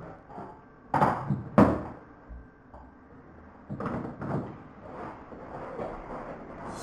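Knocks and bumps from a man handling a hard-shell suitcase: two sharp knocks about half a second apart about a second in, then a quicker run of softer bumps around four seconds as it is set down and lifted.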